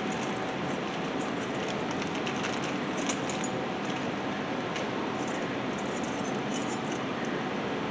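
Light metallic clinking of small brake-pad hardware clips being handled and tried against a caliper bracket, a few faint scattered ticks, over a steady background hiss.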